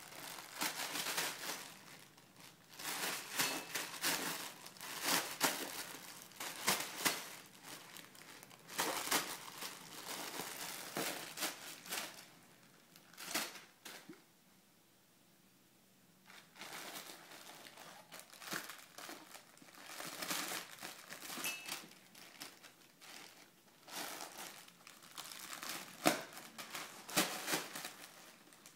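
Bubble wrap crinkling in irregular bursts as a baby grabs and shakes it, with a pause of about two seconds midway.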